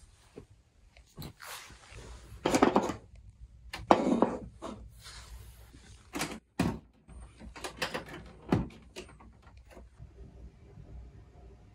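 Handling noises in a small room: a string of separate knocks, clunks and scrapes, the loudest about two and a half and four seconds in.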